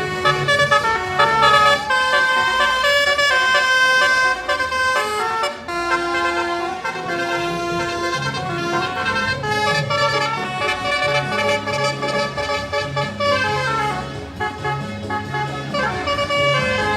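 Bus basuri telolet horn playing a tune: a continuous run of held multi-tone horn notes, stepping from one pitch to the next with hardly a break.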